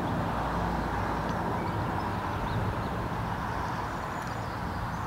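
Wind buffeting the microphone: a low, fluttering rumble over a steady outdoor hum.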